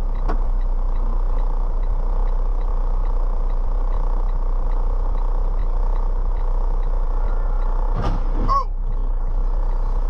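Steady vehicle running noise with a low hum and faint regular ticking about three times a second, then about eight seconds in a sudden crash with a brief wavering tone as a light-rail train strikes a car.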